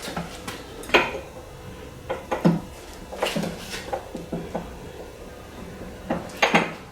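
A few sharp metal clanks and knocks from a manual tire changer as its mount bar is pushed around the rim to work a low-profile tire's bead on. They come at irregular intervals, with the loudest about a second in and near the end.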